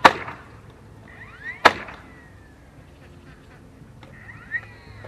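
Hammer blows on a wooden fence: two hard strikes, at the start and about a second and a half later, each with a lighter tap just before it, then another light tap near the end.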